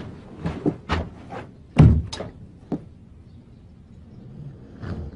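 Several sharp knocks and thumps in quick succession, the loudest about two seconds in, followed by a quieter stretch with two soft knocks near the end.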